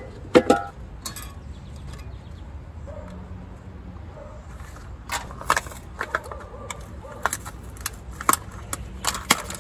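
A plastic blister pack of assorted small metal springs being handled and opened: crinkling plastic and sharp clicks of springs, a few at first and then many in the second half.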